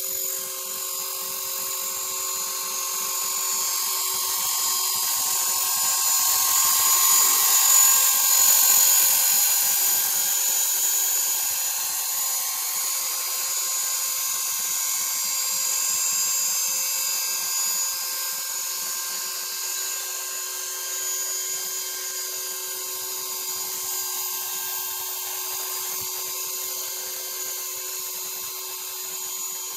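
Model RC helicopter's motor and rotor whining steadily at a high pitch. The whine grows louder to a peak about eight seconds in and then eases off.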